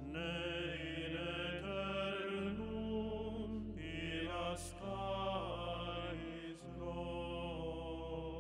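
Slow sacred chant: voices sing long held chords over a steady low note, and the chord changes about every two seconds.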